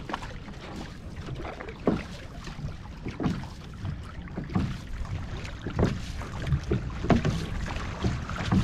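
Outrigger canoe crew paddling in unison: six paddle strokes splash into the water at a steady rate of about one every second and a quarter, over a steady low rush of water and wind.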